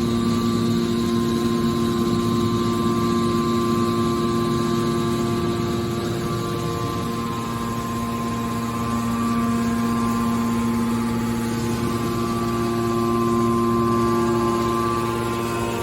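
Scrap metal push-out baler's hydraulic power unit running with a steady whine, dipping slightly about halfway through and swelling again near the end.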